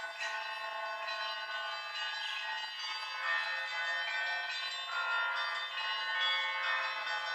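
Russian Orthodox convent bells ringing: several bells of different pitches struck in turn, their long tones overlapping as new strokes come in every second or so.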